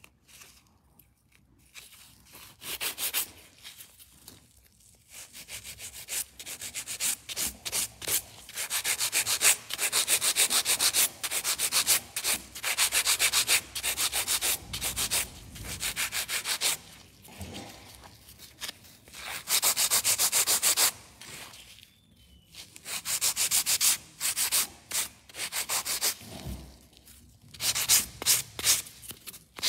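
Orange hand nail file rubbing back and forth on an acrylic powder nail, shaping and smoothing it. A dry scratchy rasp in runs of quick strokes, broken by a few short pauses.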